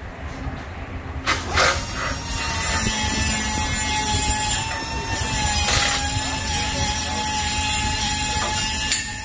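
A power tool working on the exhaust pipe under the car starts about a second in and keeps running: a steady high whine over a hiss.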